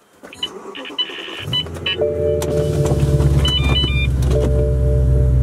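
A few short high electronic beeps, then the BMW E90 M3's V8 engine starts about a second and a half in and settles into a steady idle.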